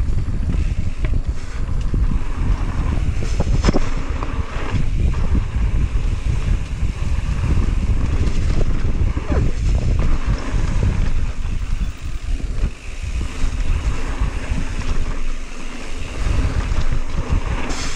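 Wind buffeting the camera's microphone as a mountain bike rides a dirt trail, a steady low rumble with a few short knocks and rattles from the bike over the ground.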